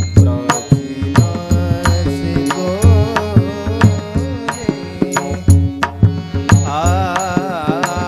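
Marathi devotional kirtan music: a male voice sings a wavering, ornamented melody over a harmonium and a steady pakhawaj drum beat.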